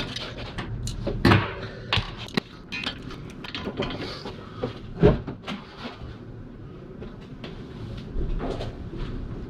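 Irregular metal clicks and knocks from working a stuck parking brake cable free at a rear drum brake, with the loudest knock about five seconds in.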